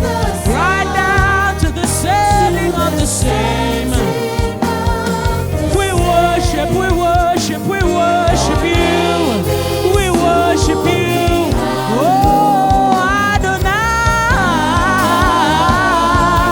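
Gospel worship music: singers holding long wavering notes over an instrumental backing with a steady bass.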